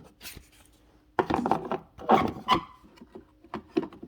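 Lock cover being worked back onto a T-top latch handle: scraping and rubbing handling noises in two bursts, about a second in and about two seconds in.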